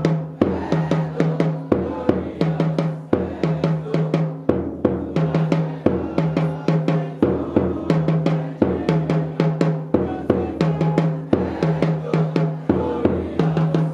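Music with a busy drum beat and a low bass note repeating roughly once a second.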